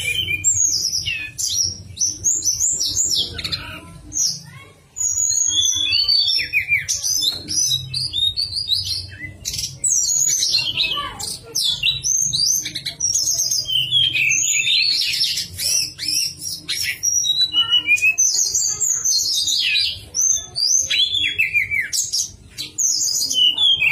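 Tledekan gunung singing a fast, varied song of high whistled chirps and slurred notes, given in long phrases with brief pauses, over a steady low hum.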